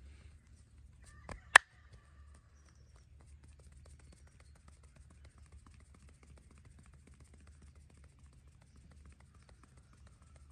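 One sharp crack about one and a half seconds in, just after a softer click, as a joint is cracked during a massage; afterwards only a faint low hum and light ticking.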